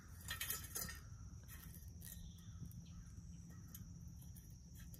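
A stick fed into a small stainless-steel wood-burning camp stove (Solo Stove Lite), scraping and knocking twice against the stove in the first second, over sparse crackles of burning twigs. A steady high insect drone runs underneath.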